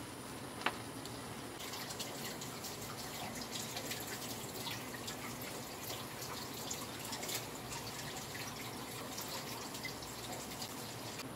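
Thick tteokbokki sauce boiling in a wide pan, a steady patter of small bubbling pops that sets in about a second and a half in. A single sharp knock just before it.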